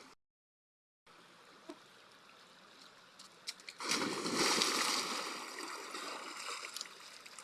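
Running water of a stream: a faint steady rush that swells much louder about four seconds in, then slowly eases. The sound drops out completely for about a second near the start.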